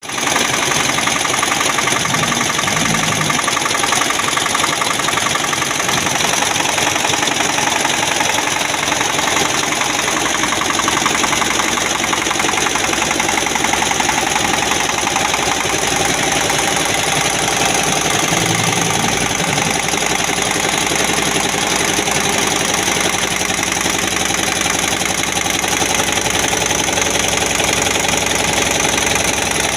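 Computerised embroidery machine stitching: a steady, fast mechanical clatter from the needle running continuously.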